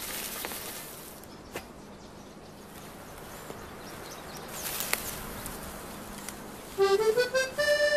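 A few sharp knocks of a digging tool striking the ground as yellow gentian roots are dug up, over a quiet outdoor hiss. About seven seconds in, music starts with a rising run of notes.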